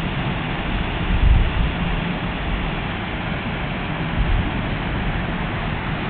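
Steady rushing of river water spilling over a small rocky cascade, with wind buffeting the microphone in low rumbles, strongest about a second in.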